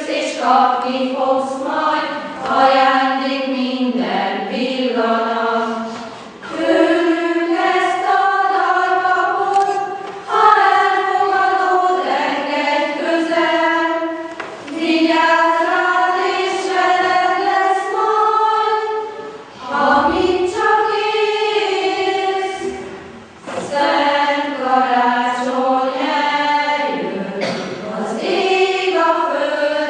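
A small choir of girls and women singing together, in held phrases a few seconds long with short pauses for breath between them.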